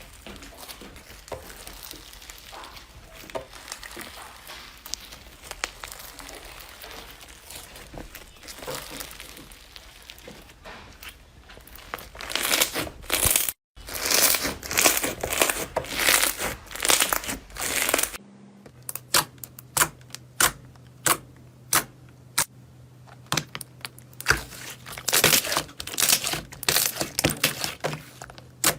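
Slime being squeezed and kneaded by hand, crackling and crinkling: faint at first, much louder from about twelve seconds in. In the last part it turns to sharp, separate popping clicks.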